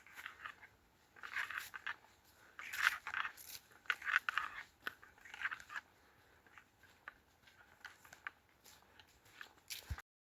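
Footsteps crunching along a forest trail at walking pace, one crackly step about every second and a half, growing fainter in the second half.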